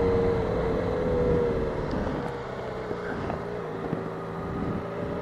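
Motorcycle engine running steadily as the bike rolls slowly in a low gear. About two seconds in, the engine note sags slightly and gets a little quieter.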